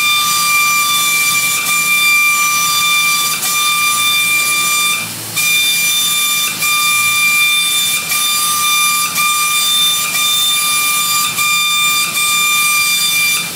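Paint spray gun spraying: a steady air hiss with a high, even whistle. It cuts out briefly about five seconds in, as the trigger is let go, then carries on.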